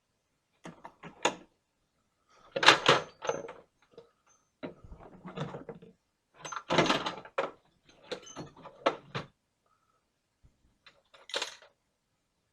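About six short bursts of clattering, clicking and knocking, like hard objects being handled and set down, with gaps between them.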